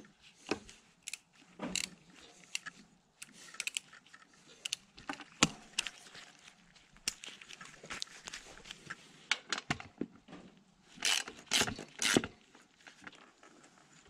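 Irregular metallic clicks, clinks and knocks of hand tools and parts on the motorcycle-wheel assembly of a homemade bandsaw mill as the wheel is adjusted on its axle. A quick cluster of louder knocks comes about eleven seconds in.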